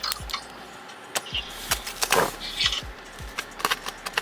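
Clicks, taps and brief rustling from a new iPad keyboard case being unpacked and handled, over a steady low hum.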